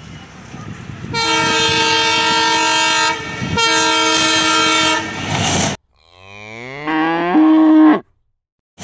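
Diesel locomotive horn sounding two long blasts, the first about two seconds and the second a little shorter. The sound then cuts out abruptly, and a dubbed-in cow's moo rises in pitch, settles on a held note and stops suddenly.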